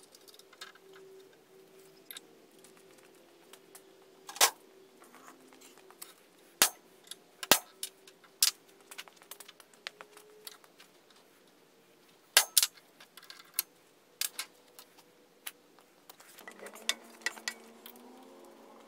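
Irregular sharp metallic clinks and knocks of brake parts, bolts and hand tools being picked up and set down on a steel workbench, a dozen or so, with the loudest falling about a third of the way in and again past the middle.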